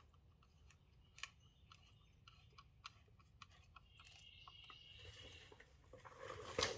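Faint scattered clicks and light taps of small metal tools and parts being handled, with a louder rustle near the end.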